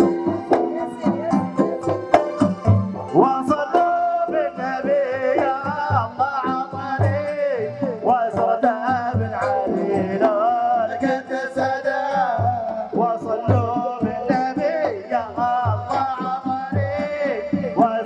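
Omani Dhofari folk music: hand-played double-headed barrel drums beat an even rhythm, and a few seconds in a voice comes in singing a wavering melody over them.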